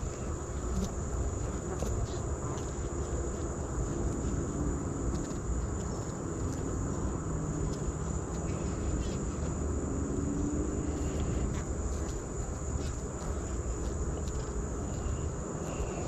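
Honey bees buzzing steadily on an open brood frame held close, a low hum, with a constant high-pitched insect trill behind it.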